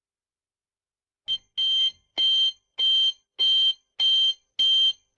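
Electronic alarm beeping. About a second and a half in, a short blip starts a run of high-pitched beeps, each a little under half a second long, repeating evenly about every 0.6 seconds.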